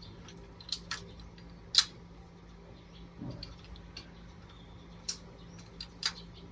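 Scattered light metallic clicks and taps from a motorcycle frame slider and its mounting bolt being handled and threaded into the frame by hand, irregular in timing, the sharpest about two seconds in.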